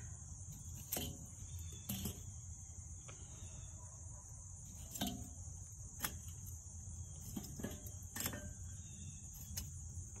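Metal grill tongs clicking and lit charcoal briquettes clinking against the kettle grill's metal charcoal grate as the hot coals are arranged, about half a dozen short sharp clinks a second or more apart. Behind them runs a steady high chirring of crickets.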